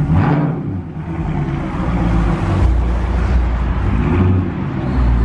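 Car engine running loud with a deep exhaust rumble that builds about a second in.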